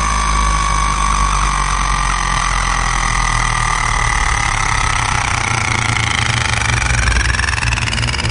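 Electronic background music: a steady low drone under long held tones that slowly slide, one falling and one rising.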